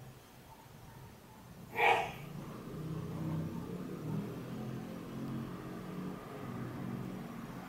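A short, loud, sharp sound about two seconds in, then a low engine hum running steadily in the background.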